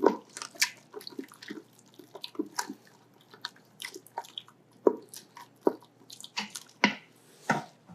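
Stew in a pot heating back toward a simmer, giving irregular soft pops and clicks, a few a second, with a handful of louder ones.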